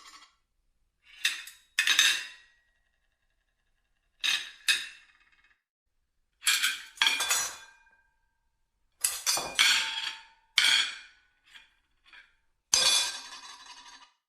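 Plates clinking and clattering against each other in about five short bursts separated by pauses, each burst of one to several knocks with a brief ringing tail.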